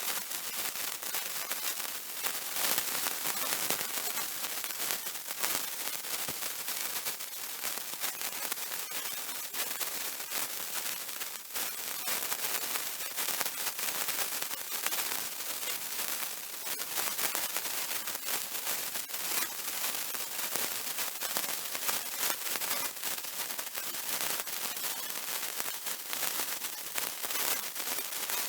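A lit sparkler burning, a steady fizzing crackle of countless tiny pops.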